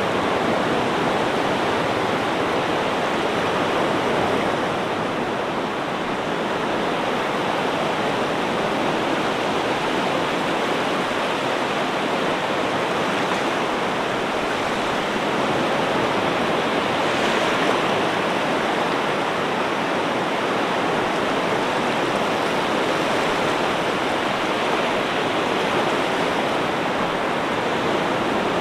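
Ocean surf: a steady wash of water noise with no separate wave breaks standing out, dipping slightly about five seconds in.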